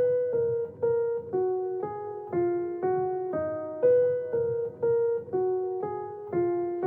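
Background music: a keyboard playing a slow line of single notes, about two a second, each fading quickly.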